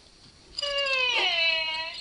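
Hasbro Furby toy talking in its high, squeaky electronic voice: one phrase of Furbish starting about half a second in, its pitch sliding downward.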